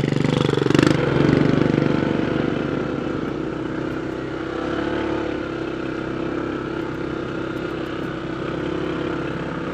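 Honda ADV 160 scooter's single-cylinder engine running under way, louder for the first couple of seconds and then steady, with a short knock a little under a second in.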